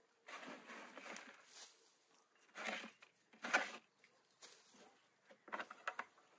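Hand weeding in garden soil: a series of short rustling, scraping strokes, the loudest about three and a half seconds in.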